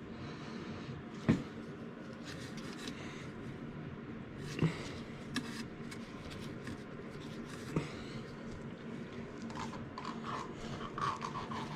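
Hands and tools working in the bottom end of a partly dismantled engine: scraping and rubbing with a few sharp single metal knocks, over a faint steady hum.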